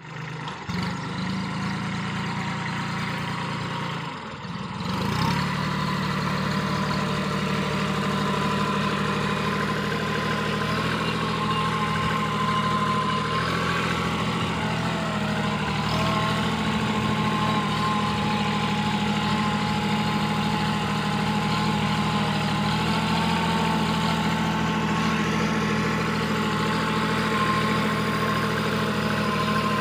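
Kubota NeoStar A211N compact tractor's three-cylinder diesel engine running steadily under load while pulling a rear-mounted cultivator. It picks up speed about five seconds in, and a thin steady whine runs above the engine from about ten seconds on.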